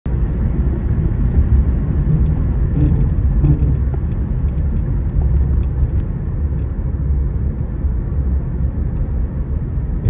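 Road noise heard from inside a moving car's cabin: a steady low rumble of tyres on pavement and the engine while driving at road speed.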